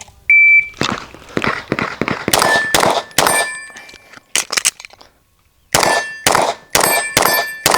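A shot timer beeps once, then a fast string of gunshots follows, many of them answered by the ring of hit steel targets. The firing breaks off for about a second around the middle, as for a transition, then resumes.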